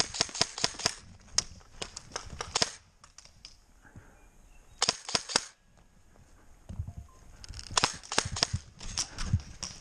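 Airsoft guns firing in rapid bursts of sharp snapping shots, with short pauses between bursts. The firing is busiest in the first three seconds and again near the end.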